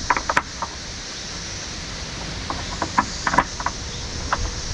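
Steady high hiss of a chorus of 17-year periodical cicadas, with a few sharp clicks and knocks from the Hobie H-Crate's corner clips being fastened onto the kayak's bars: a cluster near the start and another around three seconds in.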